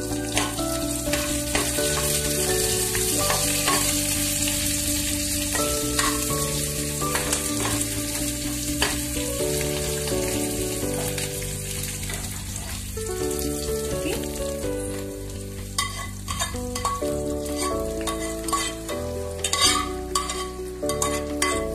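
Tempering of mustard seeds, cumin and curry leaves sizzling in hot oil as it is stirred, with a few sharp clicks near the end. The sizzle thins in the second half, under background music with a slow melody.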